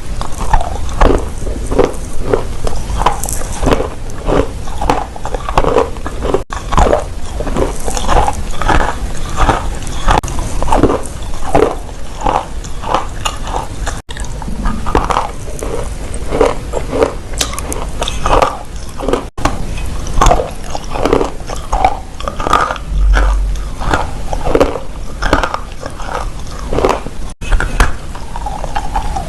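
Dry clay crunching as it is bitten and chewed close to the microphone: a steady run of short, crisp crunches, two or three a second, broken by a few abrupt cuts.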